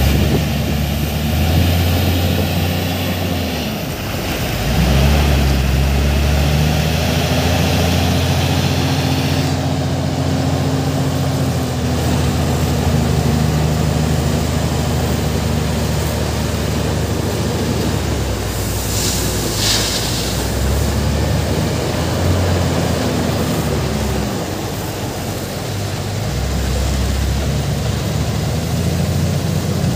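JCB wheel loader's diesel engine running and working hard, its pitch rising and falling as it scoops and carries gravel. Its pitch drops briefly about 4 s in and again around 25 s. Under it is a steady noisy rumble of the crushing plant, and a short hiss comes about 19 s in.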